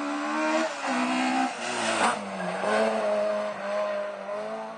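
A rally car at full throttle on a tarmac stage, its engine revving high with brief lifts or gear changes about half a second and a second and a half in. There is a short hiss of noise about two seconds in, then a steady note that fades as the car drives away.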